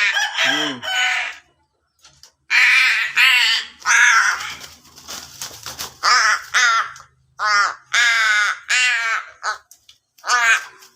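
Javan myna calling: a string of short, pitched calls that bend in pitch, coming in bursts every second or two.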